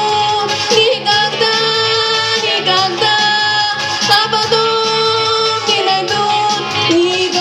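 Female voice singing a Russian pop song over an instrumental backing track, holding long notes.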